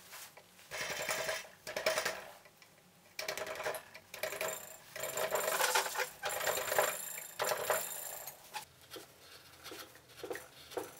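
Carving chisel pushed by hand through a wood block, the blade scraping and shaving off chips in a series of strokes: one short cut early, a long run of cuts through the middle, then shorter cuts near the end.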